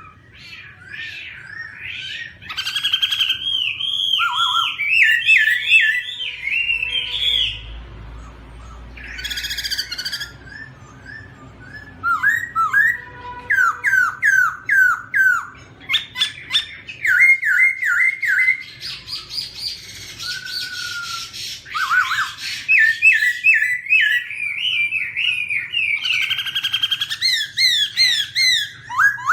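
Black-throated laughingthrush singing. Loud whistled phrases, each a quick run of repeated slurred notes, shift in pitch and pattern from one phrase to the next, with short pauses between.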